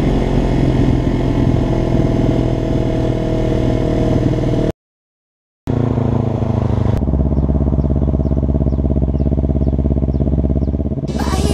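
Kawasaki Ninja parallel-twin engine heard on board with wind rush, running steadily at speed. It cuts out to a brief silence about five seconds in, comes back with the engine note falling as the bike slows, then settles to a low steady engine note. Music comes in right at the end.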